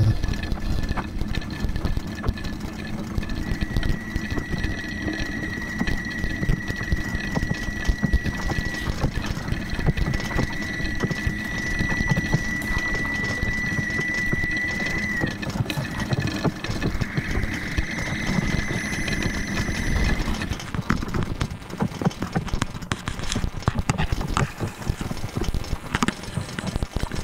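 Experimental sound-art piece: a dense low rumbling noise texture with a thin, steady high tone held for long stretches. About twenty seconds in the tone stops and a rattle of clicks and clatter takes over.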